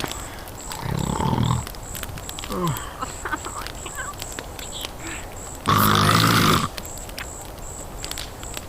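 A person snoring: a shorter snore about a second in and a longer, much louder one around six seconds. A faint high-pitched chirp repeats steadily a few times a second underneath.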